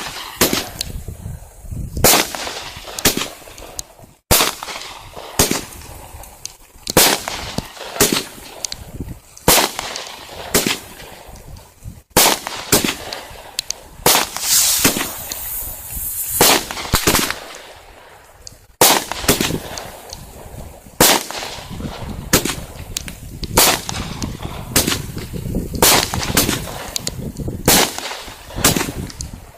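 Fathead Fireworks' 'Real McCoy' fireworks cake firing: a long string of sharp bangs, roughly one or two a second, with a denser hissing stretch about halfway through.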